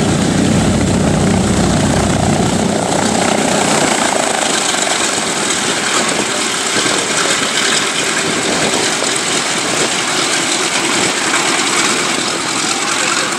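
Boeing B-17 Flying Fortress's four Wright R-1820 Cyclone radial engines running with propellers turning: a loud, steady rumble whose deepest part drops away about three seconds in.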